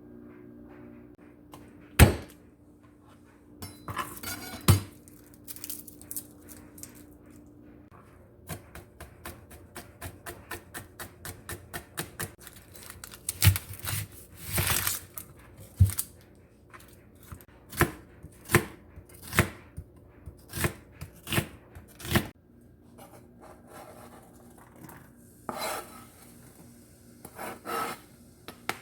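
Knife chopping on a cutting board, with a run of quick, even strokes of about four a second in the middle, among scattered knocks and clatters of pots and utensils.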